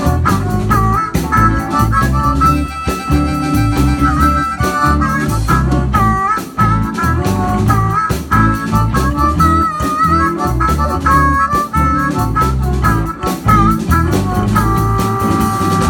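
Live blues band with a harmonica solo played into a microphone, its notes bending up and down, over electric guitars, bass and a drum kit. Near the end the harmonica holds one long note.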